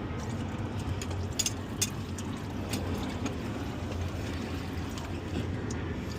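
Used engine oil pouring from the drain hole into a drain pan in a steady stream, with a few sharp clicks about a second or two in.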